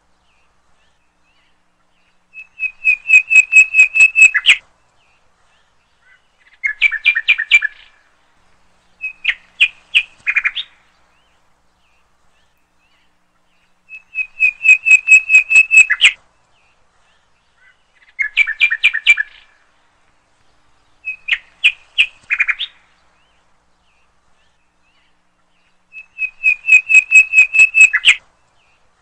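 Birdsong of rapid chirping trills, each phrase lasting about two seconds with silent gaps between. The same three phrases repeat about every twelve seconds, like a looped recording.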